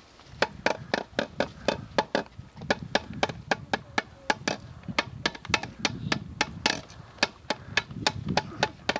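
A hand drum beaten in a quick, even rhythm as accompaniment for dancing.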